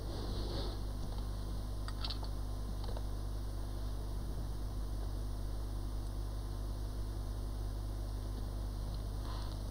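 Steady low hum with a faint hiss, broken by a few faint clicks about two and three seconds in and again near the end.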